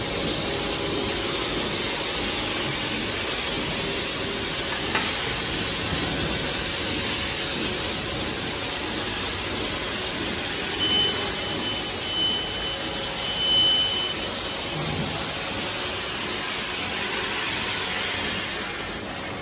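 High-speed center-sealing bag-making machine running steadily, a continuous even mechanical hiss as the paper web feeds off the unwind roll through its rollers. A short high-pitched tone, broken into three parts, sounds about eleven seconds in.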